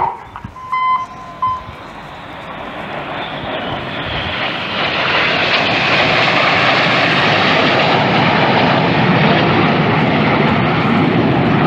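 Jet noise from a formation of BAE Hawk jets, the Red Arrows, growing louder over about five seconds and then holding steady and loud as the formation passes overhead.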